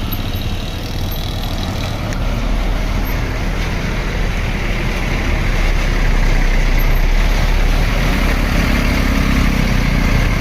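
Diesel bus engine running close by, a steady low rumble that grows louder about two seconds in and again a few seconds later, with no horn sounding.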